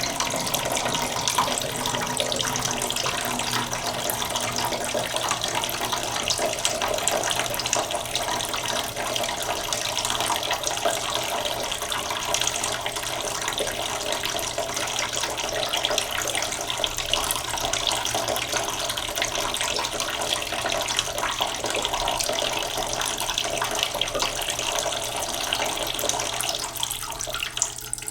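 Tap water running steadily into a cooking pot in a sink, slowly filling it.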